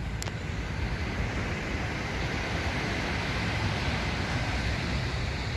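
Sea surf washing onto the beach in a steady rushing noise, with wind rumbling on the microphone. A short click comes about a quarter second in.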